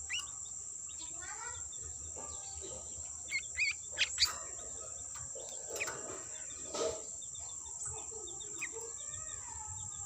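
Sooty-headed bulbul (kutilang) calls of a bird-catching lure: a quick run of sharp rising chirps about three to four seconds in, with scattered softer calls. A steady high insect drone runs underneath.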